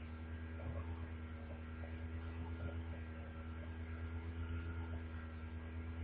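Steady electrical mains hum with a stack of overtones, unchanging throughout.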